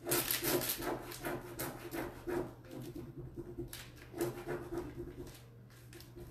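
Hands rubbing a furniture transfer through its plastic backing sheet to press it down onto a board: repeated swishing strokes, dense through the first couple of seconds and again around four seconds in, over a low steady hum.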